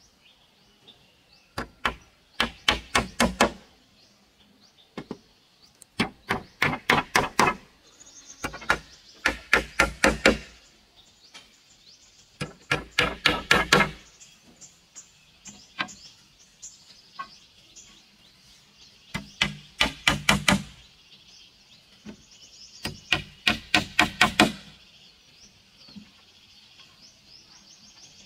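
Claw hammer driving nails into wooden floor slats, in six runs of quick blows, several strikes each, with short pauses between the runs.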